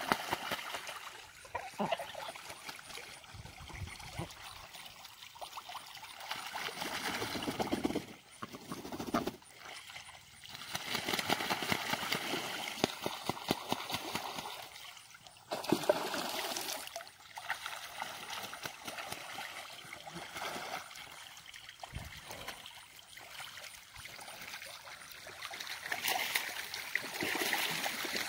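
Pekin ducks and Danish geese bathing in pond water: repeated bouts of splashing and dripping water, rising and falling every few seconds.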